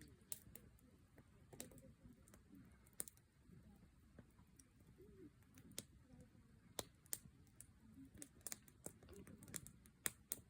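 Wood fire crackling quietly: scattered sharp snaps and pops at irregular intervals.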